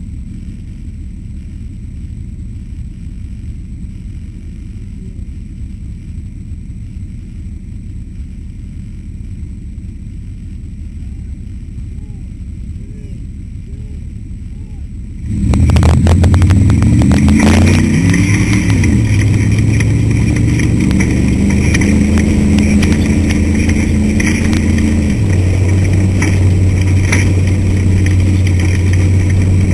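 Off-road race car heard from inside, a low steady rumble at first. About 15 seconds in the engine suddenly gets loud as the car accelerates away. It then runs hard at high revs, the pitch rising and then shifting with gear changes around 25 seconds in.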